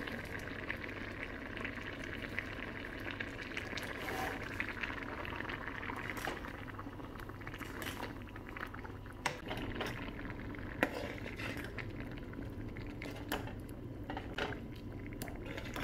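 Thick leafy gravy boiling in a stainless-steel pan, bubbling steadily, while a metal spoon stirs it and taps the pan a few times.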